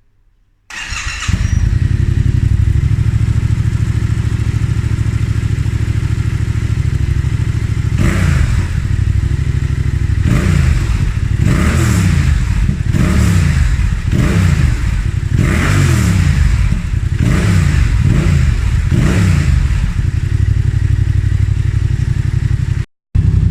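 Yamaha Tracer 700's parallel-twin engine through a Mivv Speed Edge aftermarket exhaust, idling steadily, then given a series of quick throttle blips that rise and fall in pitch before settling back to idle.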